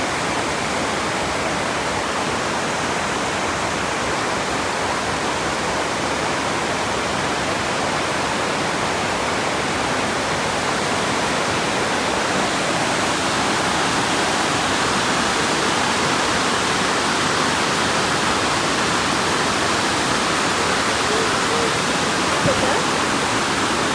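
Waterfall running: a steady, dense rush of falling water that grows slightly louder about halfway through.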